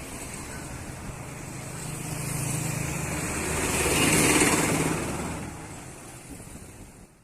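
Tour bus driving past: a low engine drone and tyre noise swell to a peak about four seconds in, then fade away.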